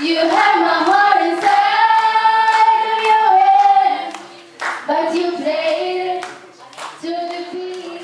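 Two young girls singing a slow melody of held, wavering notes, with a few sharp hand claps in the second half.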